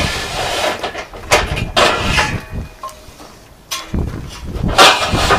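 Stainless steel pieces scraping and clanking as they are dragged out of a van's load bed, in several bursts with a short metallic ring after some of them. There is a quieter pause about three seconds in, and the loudest clatter comes near the end.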